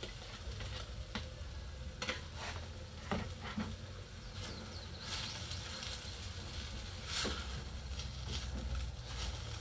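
Nopales and freshly added eggs frying in a skillet: a steady sizzle with scattered crackles and pops.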